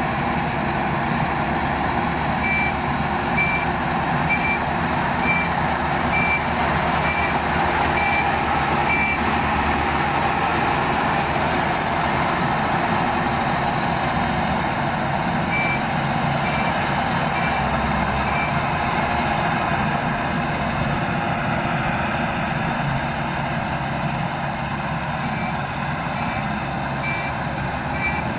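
Combine harvester running steadily with a loud engine drone, while its reversing alarm sounds a high beep about once a second in three runs: early on, around the middle, and near the end, as the machine backs up.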